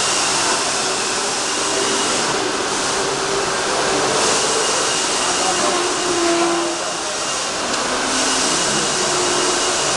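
Steady loud machinery noise of a polyurethane foam-injection line: an even air-like hiss that swells and eases every couple of seconds over a faint hum.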